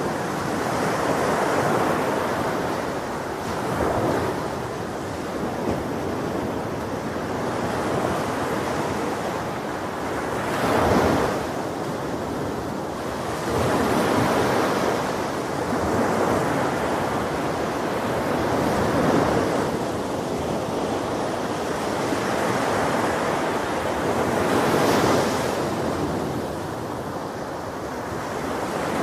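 Ocean surf breaking on a beach: a continuous wash of waves that swells louder every few seconds as each wave breaks.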